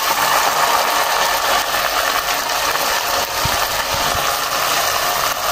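Canned sardines in tomato sauce sliding into a pan of hot oil with sautéed garlic and onion, sizzling steadily, with a couple of soft low thuds about three and a half and four seconds in.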